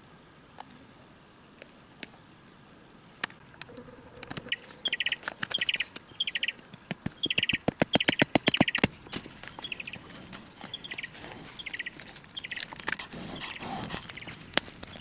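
A small songbird calling in short, repeated buzzy trills, starting a few seconds in, with a quick run of sharp clicks or ticks in the middle.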